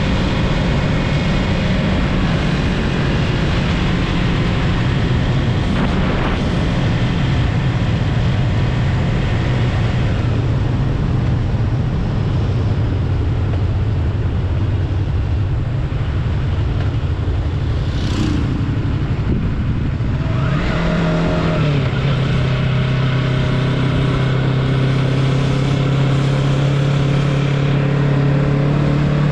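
Yamaha MT-03 motorcycle engine running while riding, with a steady hiss of wind and road noise. About two-thirds of the way through, the engine note changes and then holds steady at a new pitch.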